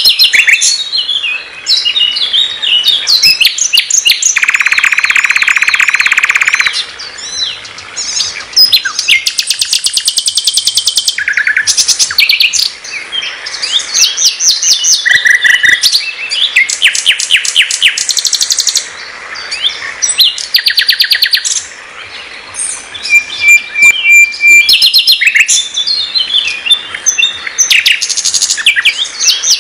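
Nightingale (sikatan londo) singing a loud, varied song of separate phrases: clear whistled notes, fast runs of repeated notes, and a long buzzing rattle from about four to nearly seven seconds in, with short pauses between phrases.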